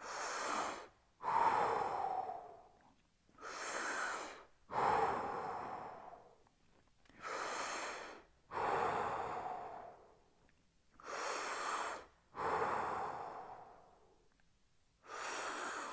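A man breathing deeply and audibly while he holds a strenuous stretch. There are about four slow breath cycles, each a breath in followed closely by a breath out, with short pauses between them.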